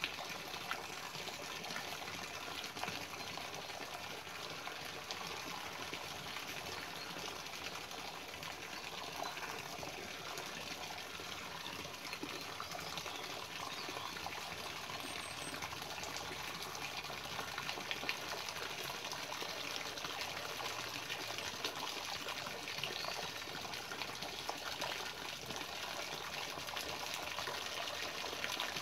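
A hose's water jet splashing steadily into a metal tub that is already full of water, a constant gushing hiss with small splashes and ticks scattered through it.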